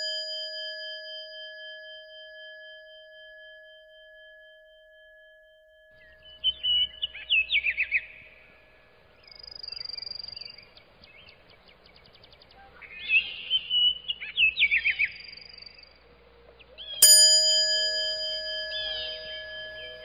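A bell rings out with several steady tones, fading slowly. From about six seconds in, birds chirp and twitter in quick bursts. Near the end the bell is struck once more and rings on.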